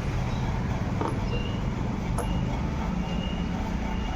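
Steady low rumble of vehicle noise from outside the workshop, with a couple of light clicks.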